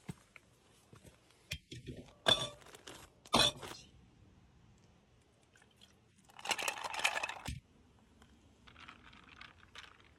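Close crunching and crinkling handling noises: several sharp crunches in the first few seconds, then a longer rustle lasting about a second starting around six seconds in, and faint crackles near the end.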